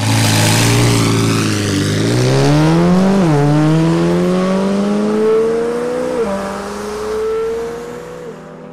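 McLaren 720S twin-turbo V8 idling briefly, then pulling away hard: the engine note rises through the gears, with an upshift about three seconds in and another about six seconds in, and fades as the car drives off.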